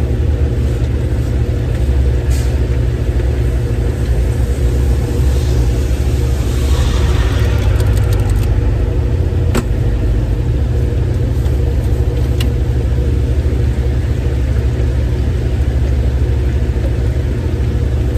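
An engine or motor running steadily with a loud, low hum. A hissing swell rises and fades around the middle, and a few sharp clicks sound along the way.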